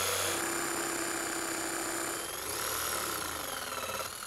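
Electric jigsaw running as it cuts a circle out of a wooden panel, the motor's pitch steady at first, then wavering up and down in the second half as the blade follows the curve.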